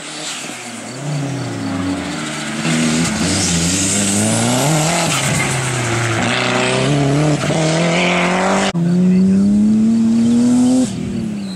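Racing car engine revving hard through a slalom, its pitch climbing and falling again and again as the driver accelerates and lifts between cones. After an abrupt break a louder engine note climbs steadily, then drops away shortly before the end.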